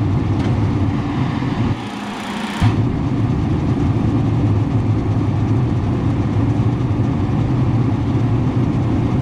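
A loud, steady engine or motor running with a low hum, cut abruptly a few times in the first three seconds.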